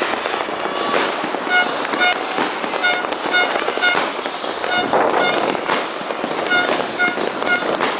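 Fireworks and firecrackers going off in a dense, continuous crackle with many sharp bangs. A short high beep repeats about twice a second from about a second and a half in.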